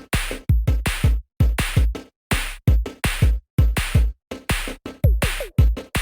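Intro music built on a drum-machine beat: deep kick drums and snare or clap hits in a steady pattern, with a couple of short sliding tones about five seconds in.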